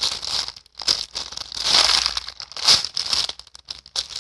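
Plastic crinkling and rustling in irregular bursts as a squishy toy and its plastic packaging are handled close to the microphone.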